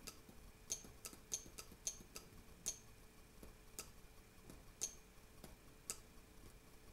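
About a dozen faint, sharp clicks at an uneven pace from a push button being pressed and released and a small relay toggling on and off with each press, some clicks with a brief high ring.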